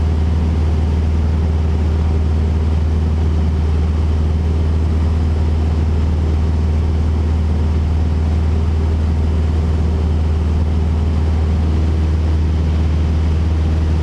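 Cessna 172RG Cutlass's piston engine and constant-speed propeller in cruise flight, heard inside the cabin as a steady low drone that does not change in pitch or level.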